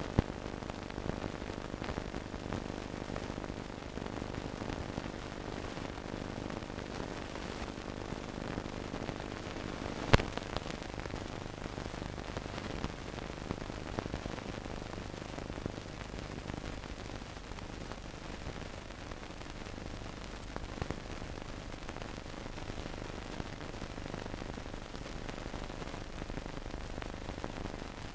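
Hiss and crackle of an old film soundtrack over a low steady hum, with scattered clicks and one sharp pop about ten seconds in.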